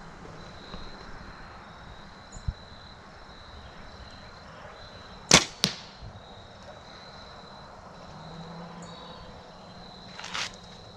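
A compound bow shot about five seconds in: a single sharp snap of the string and limbs on release, then a second, fainter crack a fraction of a second later.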